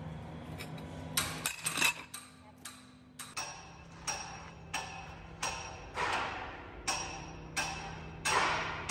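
Metal being struck with a hammer, a blow about every 0.7 seconds, each ringing briefly, over a steady machine hum.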